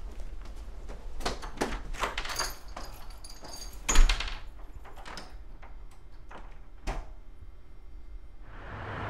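A run of clicks and knocks, the loudest a sharp thump about four seconds in and a smaller one near seven seconds, like a door or latch being handled; a rising rush of noise starts near the end.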